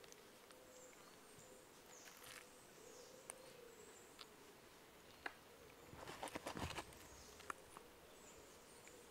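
Faint tropical forest ambience: thin high chirps, a soft low hoot about three seconds in, and a brief burst of rustling and clicking about six seconds in.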